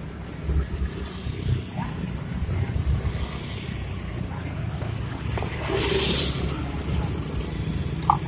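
Steady low rumble of road traffic going by, with a short hiss about six seconds in and a couple of light clicks near the end.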